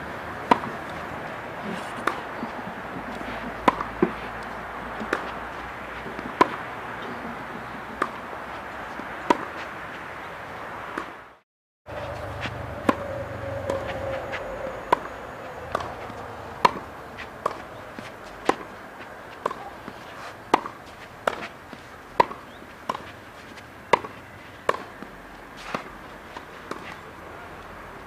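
Tennis racket striking balls in a rally, a sharp pop about every one and a half seconds. After a brief cut-out the pops come faster, nearly one a second, as quick hits close to the net, over a steady background hum.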